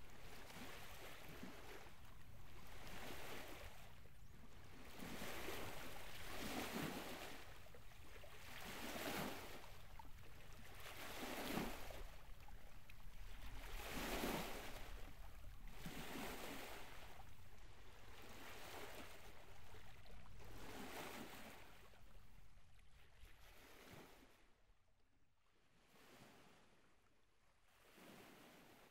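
Sea surf breaking and washing in and out, swelling about every two seconds, then fading away to near silence over the last few seconds.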